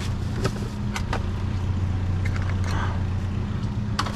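A vehicle engine idling with a steady low hum, while scattered clanks and rustles come from junk and cords being shifted about in a dumpster.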